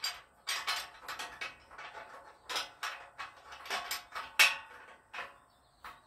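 Steel U-bolts and hardware clinking and knocking against the steel front crossmember of a Model A chassis as they are worked into place by hand to mount the front spring, in an irregular run of sharp metal clicks, the loudest about four and a half seconds in.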